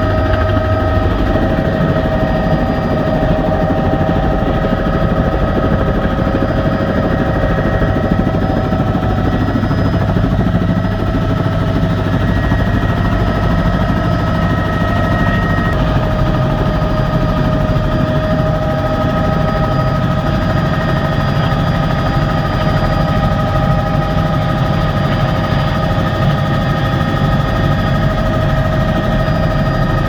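Helicopter engine and rotor heard from inside the cabin, loud and steady: a rapid rotor chop under several high whine tones that shift slightly in pitch a couple of times.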